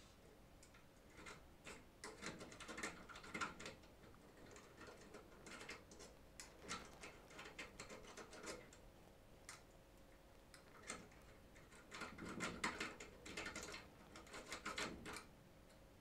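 Faint metallic clicking and scraping from a 'crocodile' rake pick being worked against the pins of a five-pin euro cylinder lock, held turned by a tension wrench. The clicks come in irregular bursts, busiest near the end.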